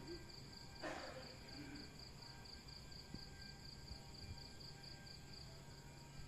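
Faint chirping of crickets in a steady, even pulse of about five chirps a second, over a low hum. A brief soft rustle comes about a second in.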